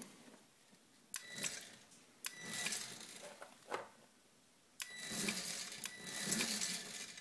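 A 250 W electric scooter motor chain-driving the mountainboard's rear wheel runs in several bursts of up to about two seconds as the throttle is worked, each starting abruptly with a steady whine. This is a first test run of the freshly mounted and wired motor.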